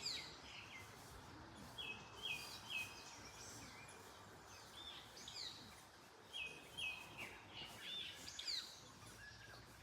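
Songbirds calling in early summer: short high chirps and a repeated set of three clipped notes, heard twice, over a steady hiss of wind in the trees.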